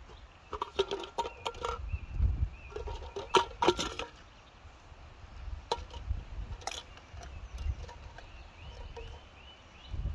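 Metal camping stove and cookware clinking and rattling as they are handled and set out, in two bursts of clatter and then a few single knocks, over a low wind rumble on the microphone.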